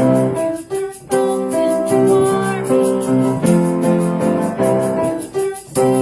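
Piano playing a hymn in slow, sustained chords, with two brief breaks between phrases: one under a second in and one near the end.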